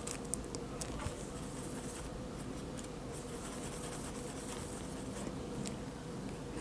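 Faint scratching of a paintbrush mixing oil paint on a plastic palette sheet, with a few soft ticks in the first second, over a steady low room hum.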